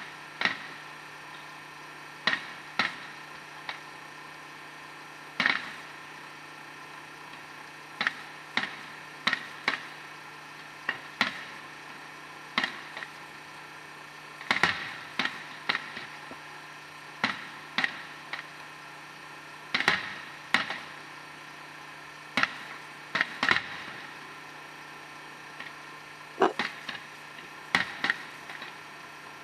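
Fireworks going off: sharp, irregular bangs and pops, a second to a few seconds apart, some in quick pairs or short clusters, over a steady background hum.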